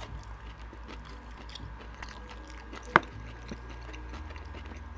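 Close-miked mouth sounds of someone chewing food, soft and wet, with one sharp click about three seconds in.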